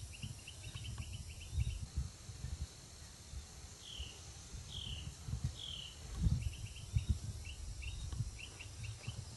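Birds calling: bursts of quick high chirps, and three separate downslurred whistled notes about four to six seconds in, over low rumbling and soft thumps.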